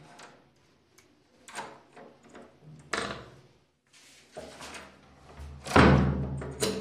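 Cylindrical knob lock being turned by hand, its knob and latch mechanism giving several short metallic clicks and rattles, with a louder knock near the end.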